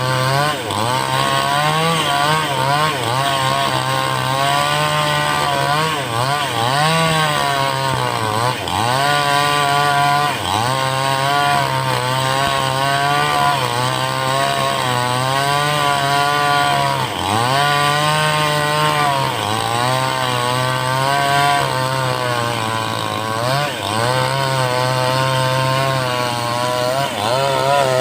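Two-stroke 5800-type chainsaw with a 22-inch bar ripping lengthwise through a teak log at high revs. The engine speed sags and recovers over and over as the chain bites into the wood.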